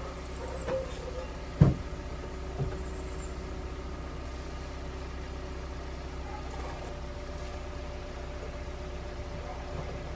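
A car engine idling steadily. About a second and a half in comes a sharp clunk, then a lighter knock about a second later: a car door being unlatched and opened.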